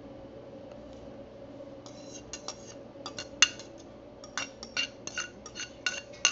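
Irregular sharp clinks and taps of a glass bowl knocking against the mixing bowl and the metal masher as chopped onion is tipped out of it. They begin about two seconds in, several a second, each with a short glassy ring, one louder knock midway.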